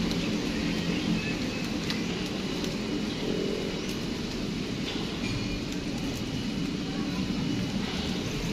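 Steady low background rumble of outdoor ambience, with a few faint clicks.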